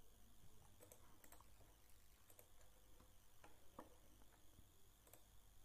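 Near silence with a few faint, irregularly spaced computer mouse clicks.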